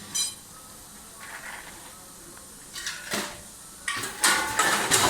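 Packaging-line machinery running, a dosing and weighing unit feeding a vertical packaging machine, with short irregular clattering, louder and busier near the end.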